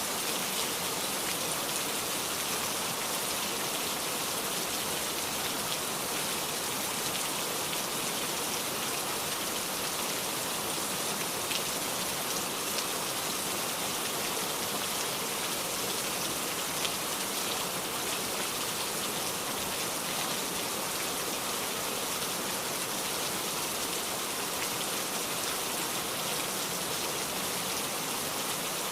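Heavy rain pouring down steadily, a dense even hiss of falling water with fine drop patter throughout.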